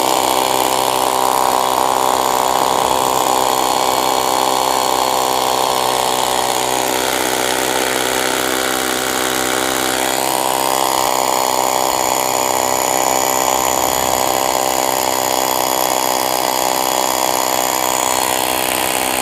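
WORX WU326P 1010 W corded rotary hammer drilling into a block of stone in hammer-drill mode, its motor running steadily under load the whole time. The bit draws itself into the stone under light one-handed pressure.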